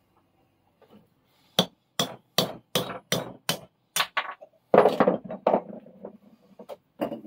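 Claw hammer striking a steel punch held against the end of a Record No. 1 vice's screw: a run of about a dozen sharp metal-on-metal blows, two or three a second, heaviest about five seconds in, with a few lighter taps near the end. The blows are driving out the screw's nut, which is stuck with old grease and muck and needs more than a gentle tap.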